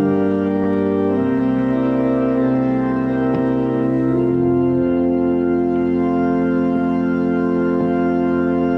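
Pipe organ playing slow sustained chords, changing a couple of times, with a final chord held long as the piece draws to a close.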